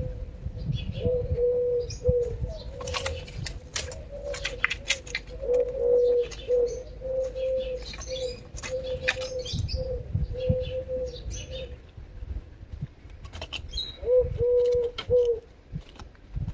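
A dove cooing: a long series of short, low, even notes that pauses about twelve seconds in and starts again near the end, with small birds chirping higher up. A few sharp clicks sound about three to five seconds in.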